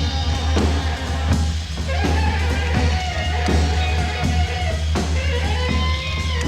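Live rock band playing an instrumental passage: electric guitar over a drum kit, with long notes held from about five seconds in. The sound is that of an old live stage tape.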